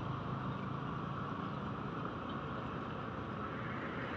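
Road traffic: a Toyota HiAce minibus approaching with its engine running and tyres on rough asphalt, over a steady hum of other vehicles.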